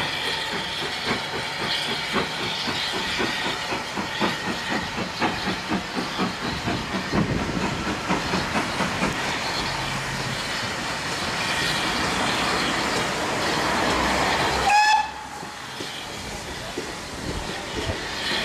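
GWR Modified Hall 4-6-0 steam locomotive No. 6990 working a passenger train past, its exhaust beating in a regular chuff with steam hissing. About fifteen seconds in, a brief whistle blast sounds and cuts off suddenly, followed by the quieter rolling of the coaches going by.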